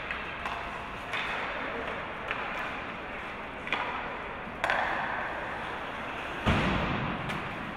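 Hockey game sounds in a rink: sharp clacks of sticks and puck at irregular intervals over a steady haze of play and voices, with a heavier thud against the boards about six and a half seconds in.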